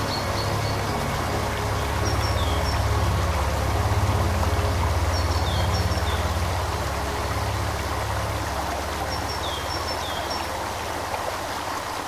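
A river flowing steadily over rocks, with small birds chirping in short groups of calls every few seconds, over low sustained background music.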